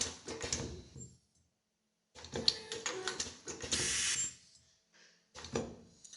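Automatic nylon zipper film welding machine running, its mechanism clattering in bursts of rapid clicks. The clicking stops about a second in and resumes about two seconds in, with a short hiss near the four-second mark. A last short burst of clicks comes near the end.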